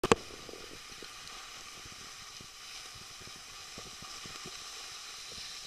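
Skis sliding over packed snow make a steady scraping hiss, with scattered faint knocks. A single sharp click comes right at the start.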